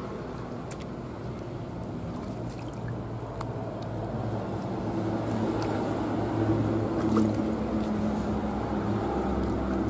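A steady low motor hum, louder from about four seconds in, with a few faint clicks.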